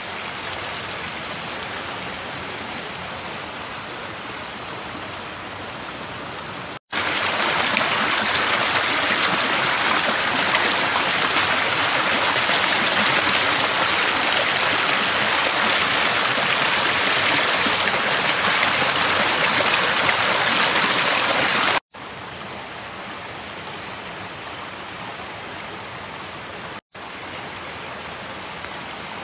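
Small rocky creek rushing and splashing between snow-covered boulders, a steady hiss of flowing water. It grows louder and brighter about seven seconds in and drops back near the twenty-two second mark, with brief abrupt breaks in between.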